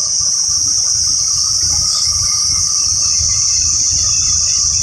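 Steady, loud, high-pitched drone of insects over a small-block V8 idling with a low, pulsing rumble. The engine is held at idle while its carburetor idle mixture screws are adjusted for the highest vacuum.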